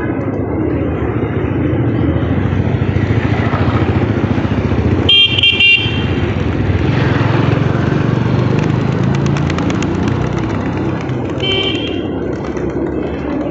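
Steady street traffic noise, with a vehicle horn honking twice in quick succession about five seconds in and once more, fainter, near the end.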